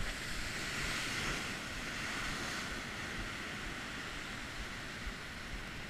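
Heavy sea surf breaking on rocks and washing back as foam. The rushing hiss swells about a second in and then slowly eases off.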